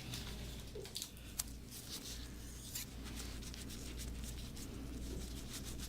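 Faint rustling and a few light clicks as hands handle dry-needling materials, preparing to insert the first needle, over a steady low hum.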